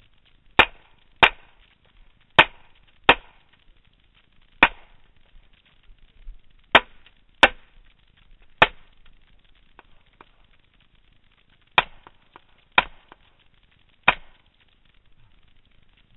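Semi-automatic pistol fired at close range, eleven sharp shots in irregular strings, several as quick pairs under a second apart, with a pause of about three seconds midway.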